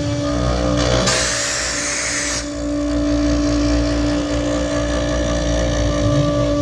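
CNC router spindle running at a steady pitch at 18,000 rpm while its bit cuts end-grain larch, over a low rumble. A loud burst of hiss lasts about a second, starting about a second in.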